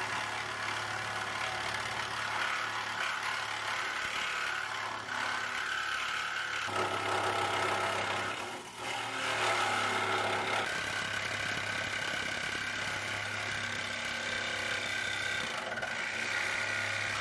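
Sawzall reciprocating saw running steadily, its blade cutting through the sheet-steel floorpan of a Mazda Miata beside the subframe channel. The sound dips briefly about nine seconds in.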